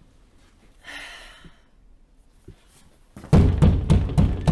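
Knocking on an office door: a quick run of about six firm knocks starting a little over three seconds in.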